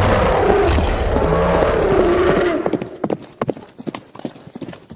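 Horse sound effect: a long, loud wavering call for about two and a half seconds, then hooves clip-clopping in a string of separate knocks.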